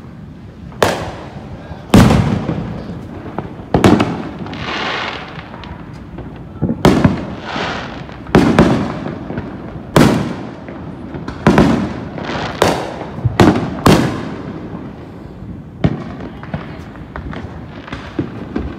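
Aerial fireworks shells bursting overhead: about a dozen sharp bangs at irregular intervals, each trailing off in an echo, with a quick run of bursts in the second half.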